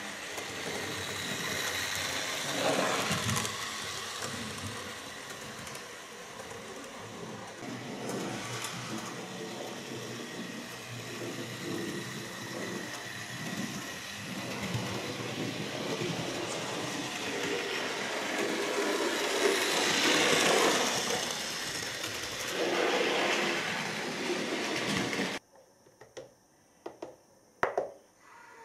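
Model railway locomotives running on the layout: a steady electric motor whirr with wheels rattling along the track, swelling and fading as they pass. It stops abruptly near the end, leaving a few faint clicks over a low hum.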